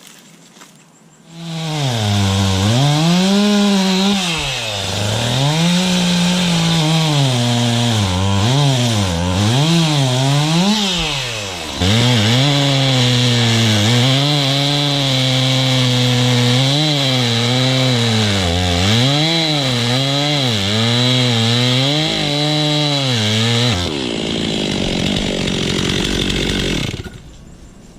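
Stihl two-stroke chainsaw running and cutting wood, its engine pitch rising and dropping again and again as it revs and slows in the cuts. It stops abruptly about four seconds before the end.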